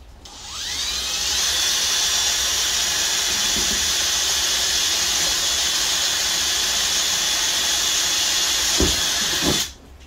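Cordless drill spinning up over about a second, then running steadily at high speed as it bores a corner hole through the boat deck to start a square cutout, and cutting off just before the end. A couple of low knocks come shortly before it stops.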